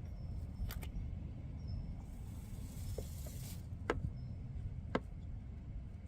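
Engine running with a steady low rumble, a brief hiss about two seconds in and a few sharp ticks or clicks, recorded as an abnormal engine noise.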